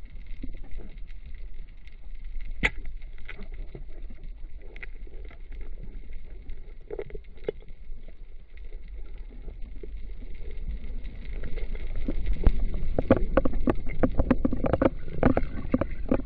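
Underwater recording: a steady low water rumble with scattered clicks and knocks, which grow busier and louder over the last few seconds as the diver handles an octopus on the seabed.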